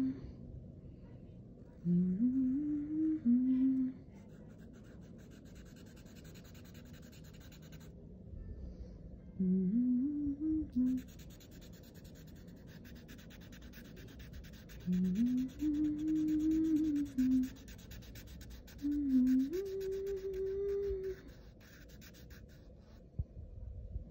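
A person humming a tune in four short phrases with pauses between them. Fainter scratchy strokes of a Sharpie permanent marker rubbing on paper come and go under the humming.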